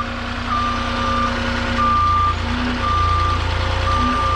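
Forklift reversing alarm beeping steadily, about five beeps roughly a second apart, over the forklift's engine running, which rises briefly about three seconds in as it manoeuvres with a load.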